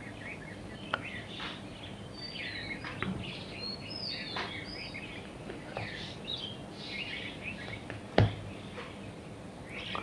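Small birds chirping and twittering in short, scattered high calls over a faint hiss, with a sharp click about eight seconds in.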